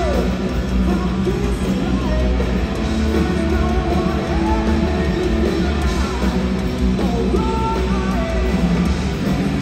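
Punk rock band playing live at full volume: electric guitars, bass and drums, with a shouted vocal line.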